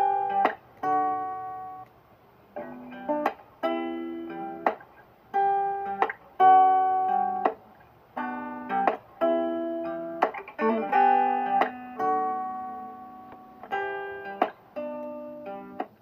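Background music: a guitar playing plucked notes and short strummed chords, each one ringing out and fading before the next.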